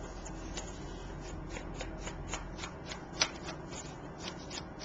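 Small irregular taps and scrapes of a Versa Magic chalk ink pad dabbed along the edges of a cardstock card, with paper rustling as the card is handled; one sharper tap about three seconds in.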